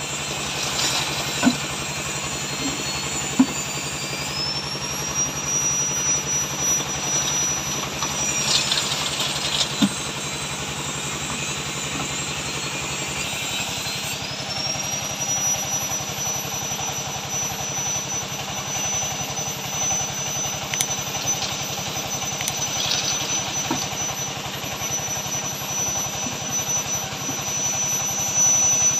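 Homemade cement mixer's engine running steadily, with a few short knocks and scrapes as wet concrete is tipped from a bucket into a steel mould.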